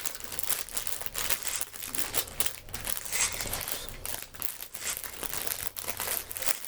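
Plastic packaging of a Lego set crinkling and rustling as it is handled, a continuous run of irregular crackles.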